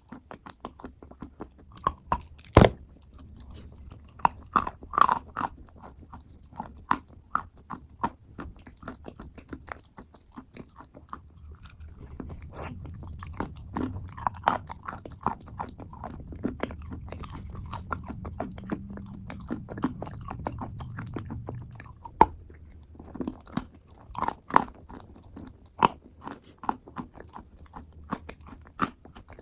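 A person biting into and chewing clay paste and wet clay close to the microphone: a run of irregular crisp crunches and wet clicks, with one sharp, loud crunch about two and a half seconds in.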